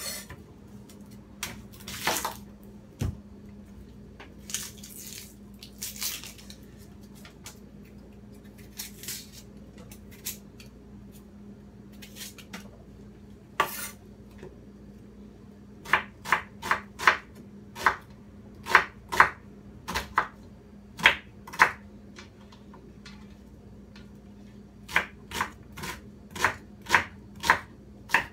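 Kitchen knife chopping an onion on a wooden cutting board: scattered cuts at first, then runs of quick, sharp chops about two a second in the second half. A steady low hum runs underneath.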